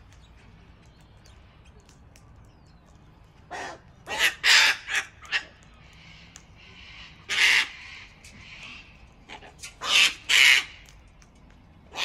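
Sulphur-crested cockatoo screeching, harsh and loud: a quick run of four screeches a few seconds in, a single one near the middle, then two close together near the end.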